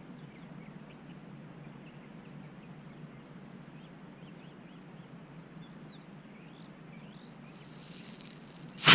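Small birds chirping over a steady low background rumble. Near the end a hiss rises for about a second, then a D12 solid-fuel model rocket motor ignites with a sudden, very loud rushing blast: the rocket lifting off.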